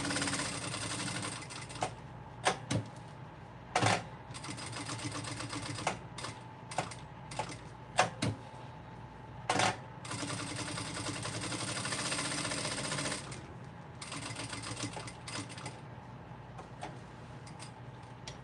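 Electric sewing machine stitching through layered fabric and clear vinyl in several short runs, stopping and starting. Sharp single clicks fall in the pauses between runs.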